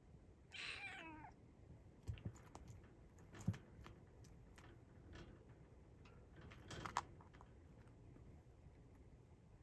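A kitten meows once, a short cry that falls in pitch, followed by a few scattered sharp clicks and taps.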